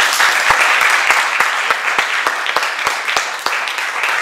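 Audience applauding: dense, steady clapping with single louder claps standing out.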